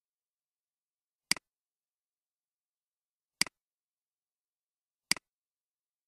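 Three sharp computer-mouse clicks, spaced about two seconds apart, each with a quick second tick right after the first, as the button is pressed and released.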